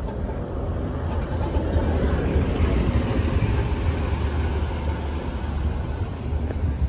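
A bus passing close by, its engine rumble and road noise swelling in the middle and then easing off as it pulls away, over city street traffic.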